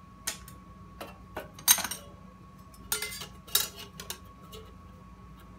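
Thin aluminium sheet-metal chip guards clattering and clinking against the mill vise and table as they are handled and fitted: a string of sharp metallic rattles, the loudest just under two seconds in.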